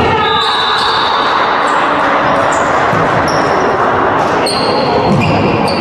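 Athletic shoes squeaking briefly several times on a wooden sports-hall floor as volleyball players shift their feet, over a steady din.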